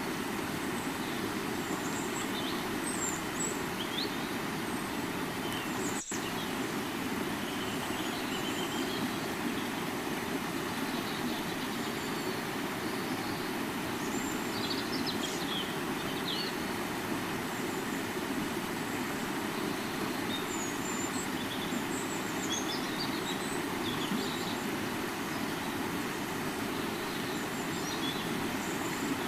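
River water flowing steadily, with scattered short bird chirps over it and a single brief click about six seconds in.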